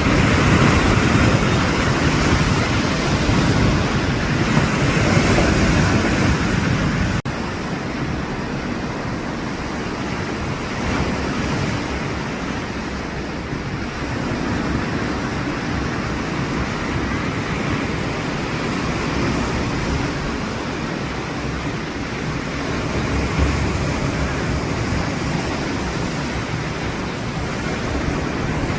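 Sea waves washing on the shore, a continuous noisy wash that drops abruptly to a softer, steadier level about seven seconds in.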